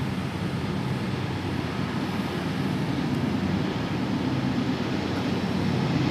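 Low, steady rumble of the Union Pacific coal train's diesel locomotives approaching while still out of sight, growing slowly louder.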